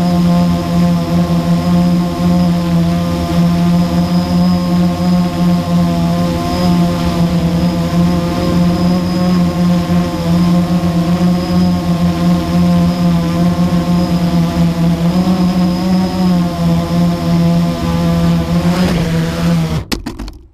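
Blade 350 QX quadcopter's electric motors and propellers humming steadily, heard close up from the onboard camera. About 19 seconds in, the pitch rises briefly, then the sound cuts off suddenly as the quadcopter sets down on the pavement.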